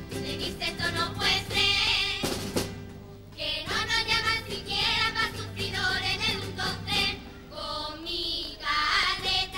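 Girls' carnival comparsa choir singing a song together, with one sharp percussive hit about two seconds in and a short break in the singing just after it.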